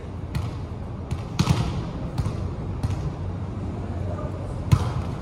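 A ball bouncing on a hard court floor, about one bounce every three-quarters of a second for the first three seconds, then one sharper, louder smack near the end. The knocks echo in a large hall.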